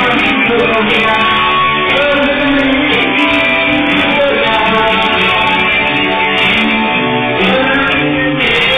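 Live band playing loudly and steadily, with guitar to the fore.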